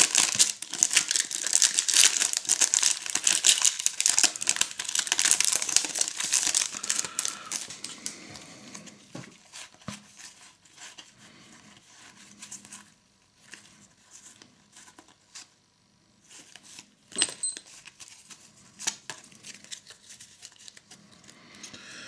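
Foil trading-card booster pack being torn open and crinkled for about seven seconds. After that come quieter rustling and a few light taps as the cards are handled.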